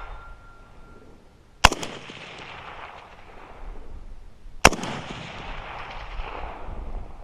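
Two rifle shots about three seconds apart, each a sharp crack followed by a long rolling echo that dies away over a couple of seconds.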